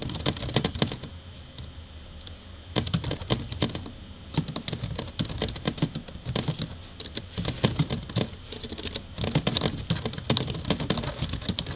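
Typing on a computer keyboard: quick runs of key clicks broken by short pauses, the longest about a second long just after the first run.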